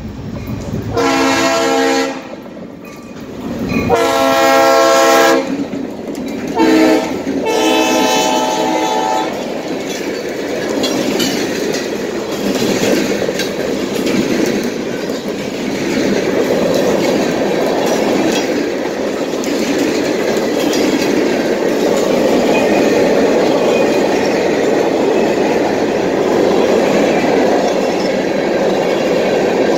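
Train horn sounding the grade-crossing signal: two long blasts, a short one and a long one. Then the train passes close by, its cars and wheels making a steady running noise on the rails to the end.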